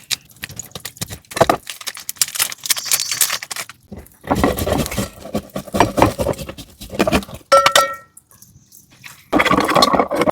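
A busy run of knocks, clicks and scraping in bursts, with a short ringing metallic clink about three-quarters of the way through.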